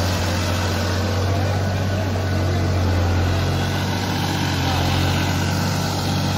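Massey Ferguson 9500 tractor's diesel engine running steadily under load while pulling a three-bottom mouldboard plough through the soil.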